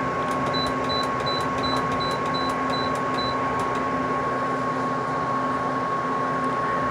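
Haier 5,000 BTU window air conditioner running steadily, its fan hum and a steady tone throughout. In the first half, its control panel beeps about eight times in quick succession, about three a second, as the temperature arrow buttons are pressed, with faint clicks running on.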